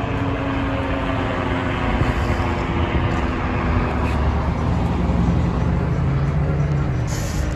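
Steady engine rumble with a few held tones over it, the sound of motor traffic or an aircraft passing.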